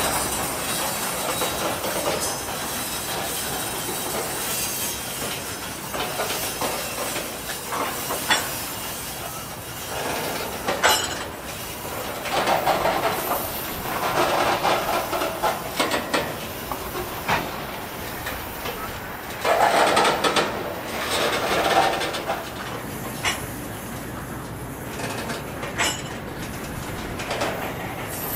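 Train cars rolling past on the rails: a steady rush of wheel and rail noise, with louder clattering surges every few seconds.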